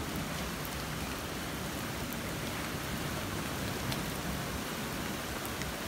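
Flood-swollen creek rushing over and through two half-submerged corrugated metal culverts: a steady rush of fast-moving water.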